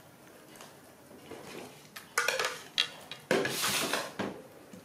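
Plates knocking and scraping on a metal tabletop: quiet at first, then a few sharp clinks about two seconds in and a longer, louder scrape about a second later.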